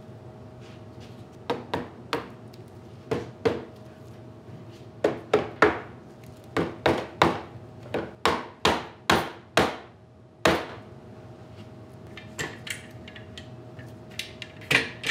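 A hammer knocking on wood: about twenty sharp knocks in uneven runs, then a few lighter clicks near the end. It sounds like loose wooden chair joints being knocked together for gluing and clamping.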